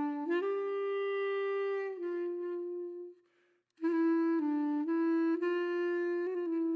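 Music: a reed wind instrument like a clarinet holds long notes, stepping from one pitch to the next. It breaks off briefly about three seconds in, then goes on.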